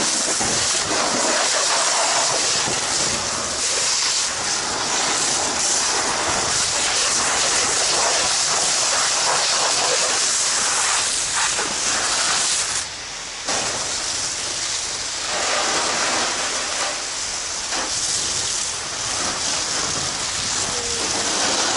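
Fire hose nozzle spraying a water stream onto burning wreckage: a loud, steady hissing rush, with steam hissing where the water hits the fire. The flow dips briefly about thirteen seconds in.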